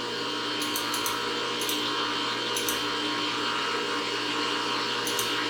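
Sharnoa CNC knee mill's powered axis drives giving a steady electrical whine and hum, with a few faint ticks, while an axis is stepped in small increments under a dial indicator.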